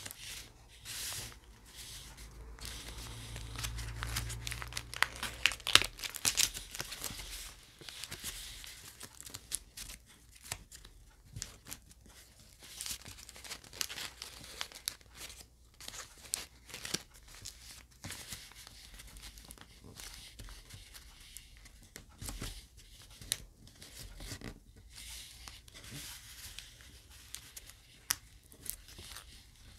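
Origami paper rustling and crinkling as a multi-layered paper top is folded, creased and its flaps tucked in by hand: irregular sharp crackles, busiest in the first several seconds, then sparser.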